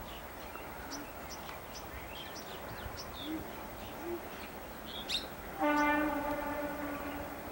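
An Indian Railways locomotive horn sounds one steady note for nearly two seconds, starting about five and a half seconds in. Before it, birds chirp in short calls over a steady background hiss.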